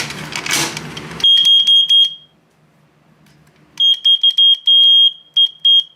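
Smoke alarm horn sounding on presses of the test button, its bent contact tab just set right so the test now works. A loud, shrill single tone comes in broken stretches: a stuttering burst of about a second, a pause, then a longer stretch of over a second that ends in two short beeps.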